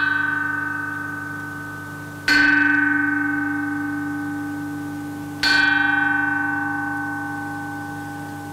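A bell-like metal chime struck twice, about three seconds apart, over the fading ring of a stroke just before. Each stroke starts sharply and rings on with several clear tones that slowly die away.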